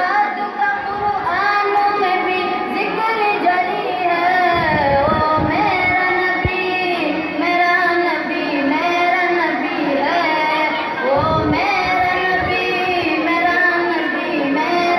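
A boy singing an Urdu naat solo into a microphone over a PA, with long held notes that slide and bend in pitch.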